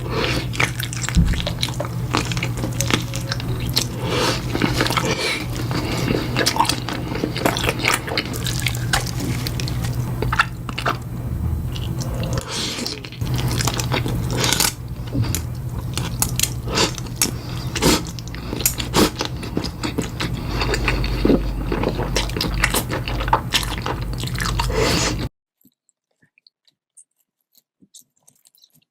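Close-miked eating sounds: a person chewing and biting into crunchy food, with many irregular crisp crunches and wet mouth noises over a steady low hum. They cut off suddenly near the end.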